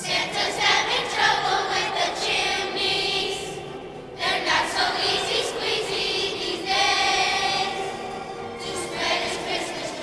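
Children's choir of fifth-grade students singing, in phrases with a short break about four seconds in and another near nine seconds.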